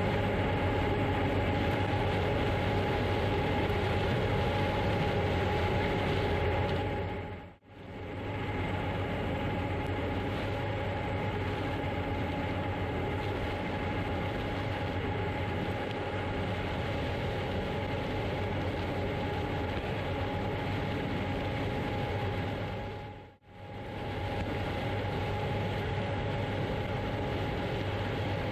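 Heavy harvest machinery running steadily: a constant deep hum with a steady whine over it. The sound fades out and straight back in twice, about eight and twenty-three seconds in.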